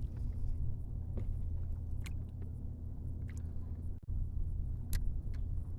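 Steady low rumble of wind buffeting the microphone on open water, with a few light clicks scattered through it.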